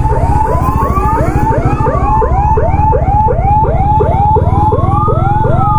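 Emergency vehicle siren sounding two patterns at once: a fast yelp of about four short whoops a second, and a slower wail that rises and falls twice. A steady low rumble runs underneath.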